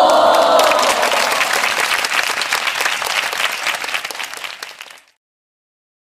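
Applause: many hands clapping with a cheer at the start, fading out about five seconds in.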